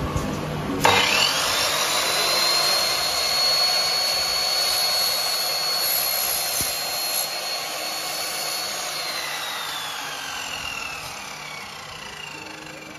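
A 2000 W sliding mitre saw with a 255 mm blade, for cutting aluminium, switches on about a second in and whines up to speed. It runs at a high steady pitch while the blade head is brought down through an aluminium profile. It is then switched off and the blade winds down with a falling whine over the last few seconds.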